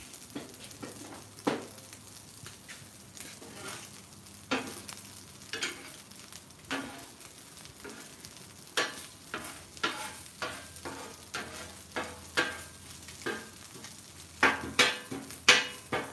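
Metal spatulas scraping and chopping fried rice on a Blackstone flat-top griddle, with a steady sizzle underneath. The scrapes come about once a second, with a quick run of louder strokes near the end.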